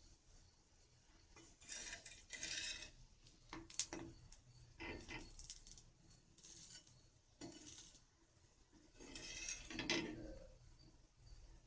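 Metal spatula scraping and clinking on a dry tava griddle as dal vadas are slid loose and turned. There are several short scrapes, a sharp clink about four seconds in, and a longer, louder scrape near the end.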